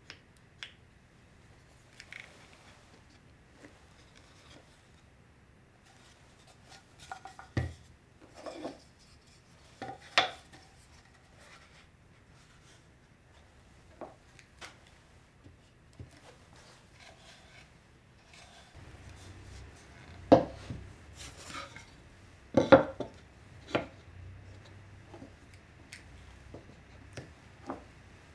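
Plywood jig, boards and small clamps being handled on a wooden workbench: scattered knocks, taps and clicks of wood on wood, the loudest knocks about 8, 10, 20 and 23 seconds in.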